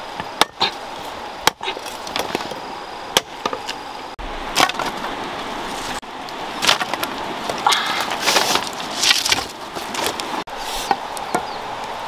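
A large knife chopping green wooden sticks on a wooden stump. It gives a few separate sharp chops in the first four seconds, then a denser run of scraping and knocking of wood about halfway through.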